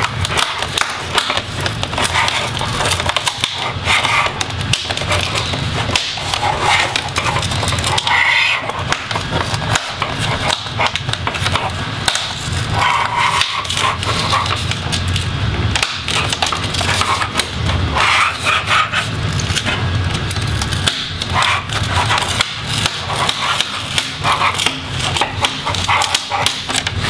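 Plastic display bezel of an MSI GE72VR laptop being pried off by hand: continuous crackling and clicking as the bezel's plastic catches let go and its adhesive tape strip pulls away from the screen, with rubbing and handling noise against the table.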